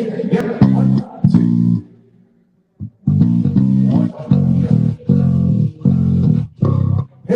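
Electric bass guitar played solo: a few short notes, a pause of about a second, then a steady run of short repeated notes.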